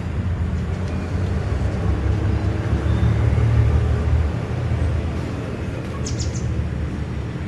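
Low engine rumble of passing road traffic, swelling to its loudest about three to four seconds in and then easing. A brief high bird chirp sounds about six seconds in.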